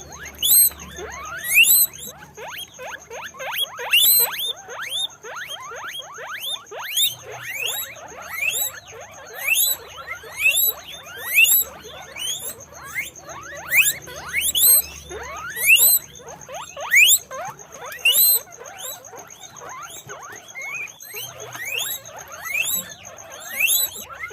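Guinea pigs wheeking: a continuous run of high, rising squeals, many overlapping, the loudest coming about once a second.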